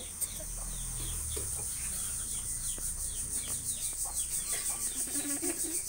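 Repeated short bird calls over a steady, high, pulsing insect drone, with one sharp click near the start.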